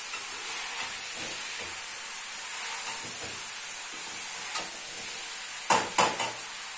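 Shredded cabbage and meat sizzling as they fry over high heat in a metal pan, stirred with a slotted metal spoon. Near the end come a few sharp clacks of the spoon against the pan.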